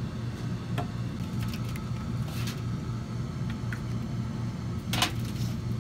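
A steady low hum, with a few light clicks and knocks as a bottle is handled and lifted off a metal baking tray; the sharpest knock comes near the end.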